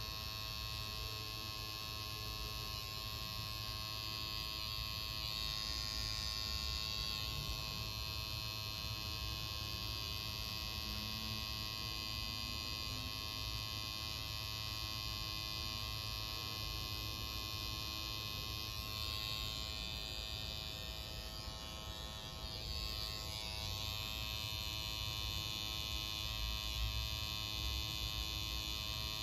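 Pen-style rotary tattoo machine buzzing steadily as the needle works ink into skin.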